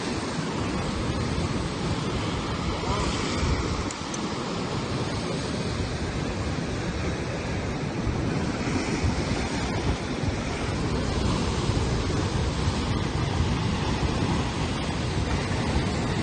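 Ocean surf breaking and washing over coastal rocks: a steady, continuous rush of white water.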